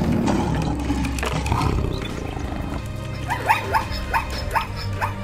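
A deep, growling big-cat roar sound effect over background music, giving way after about three seconds to the music with short rising squeaky chirps repeating a few times a second.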